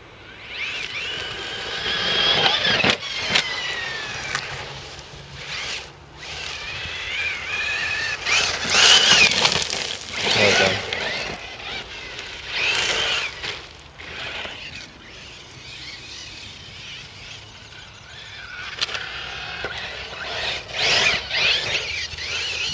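Electric RC truggy with a Tenshock X812L brushless motor on a 2S+2S lipo pack, its motor whining as the throttle is worked hard. The pitch rises and falls over several passes, mixed with tyre noise on loose gravel.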